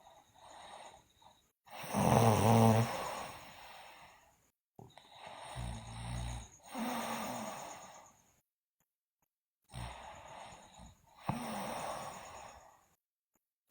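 A sleeping girl snoring loudly: a series of snoring breaths in and out, separated by short silent pauses, with the loudest snore about two seconds in.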